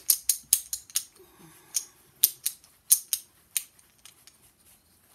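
Small metal jewelry pieces clicking and clinking together as they are handled: a string of sharp, irregular clicks, busiest in the first three and a half seconds and sparse after that.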